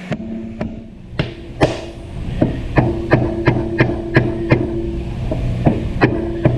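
Dead blow hammer tapping a sensor into a drilled hole in a plastic engine intake: a series of about fifteen uneven taps, quickest around the middle, over a steady low hum.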